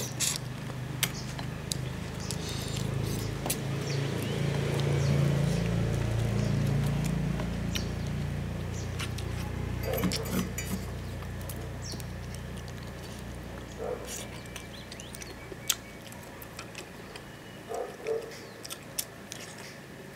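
Eating sounds: chewing spicy braised prawns and chicken feet, with many small clicks and lip smacks. A low rumble swells over the first few seconds and fades by about halfway.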